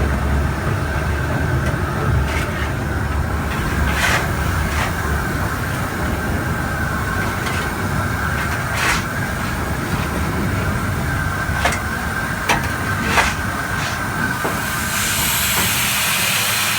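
Footplate sound of the Ivatt Class 2 mogul steam locomotive 46447 on the move: a steady low rumble with scattered sharp knocks and clanks. About fifteen seconds in, a loud steam hiss starts and carries on.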